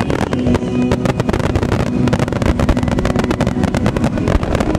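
Wide star mine fireworks finale: a rapid barrage of shells bursting in quick succession, merging into a dense continuous rattle of bangs, with show music playing underneath.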